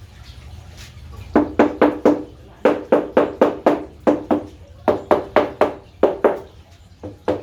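Hammer blows struck in quick runs of two to five, about four a second, each knock leaving a short ringing tone.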